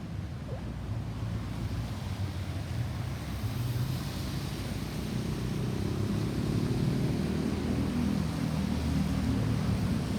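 Road vehicle engine and tyre rumble, growing steadily louder as a vehicle approaches; no siren is sounding.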